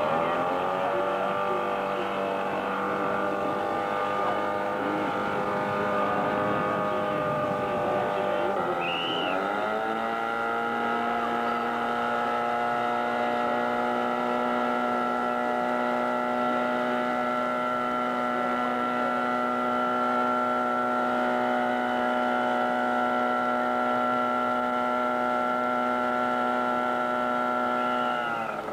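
Fire pump engine running at high revs to drive the hoses. About nine seconds in its speed dips and then climbs to a higher steady pitch, which it holds until the revs drop near the end.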